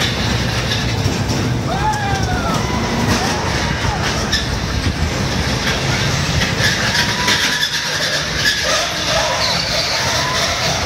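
Small steel family roller coaster car running around its track, giving a steady low rolling noise from its wheels on the steel rails.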